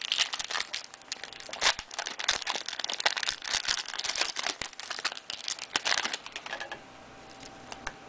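A 2004-05 Fleer Ultra basketball card pack wrapper crinkling as it is handled and opened: a dense run of small crackles that dies away about seven seconds in.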